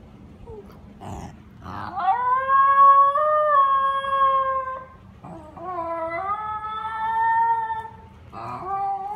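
Basenji yodeling: two long, drawn-out calls, each sliding up at the start and then held, with a third call starting near the end.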